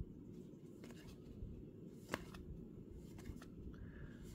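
Baseball cards being flipped through one at a time in the hands: faint papery slides and soft clicks as cards move from stack to stack, the sharpest click about two seconds in.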